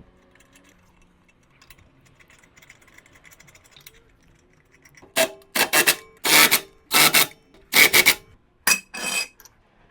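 Ratchet wrench worked in quick strokes, about eight short rasping bursts of clicking in the second half, as a suspension bolt is run in.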